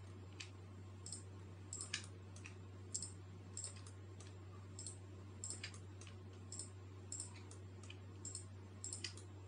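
Computer mouse clicking, short sharp clicks at an uneven pace of about two a second, as vertices are selected one at a time. A steady low hum runs underneath.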